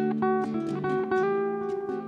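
Two ukuleles playing an instrumental passage of a slow song: single plucked melody notes, one after another, ringing over sustained chords.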